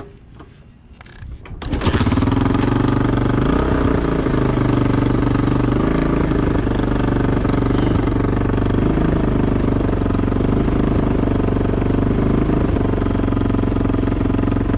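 Small dirt bike engine starting suddenly a little under two seconds in, then running steadily.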